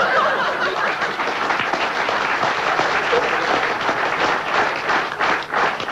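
Theatre audience applauding; near the end the clapping becomes more separate claps.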